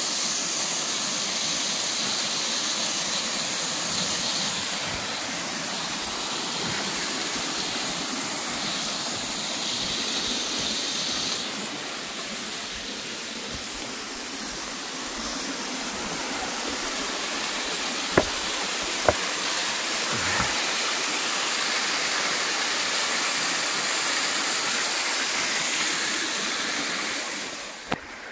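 Small waterfall splashing steadily over rocks, a continuous rushing of water. Two sharp clicks come about two-thirds of the way through.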